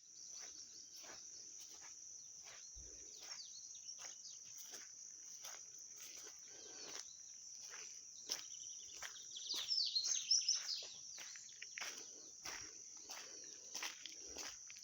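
Outdoor dawn chorus: insects keep up a steady high-pitched trill, with many short sharp calls scattered throughout. Birds call with quick rising and falling chirps, loudest about eight to eleven seconds in.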